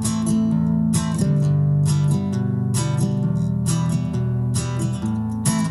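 Acoustic guitar strummed, with chords ringing out between strums about once a second.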